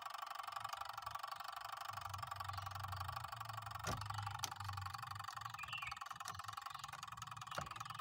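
Steady high background hum with a low uneven hum beneath it, and a few light clicks: two about four seconds in, one near the end.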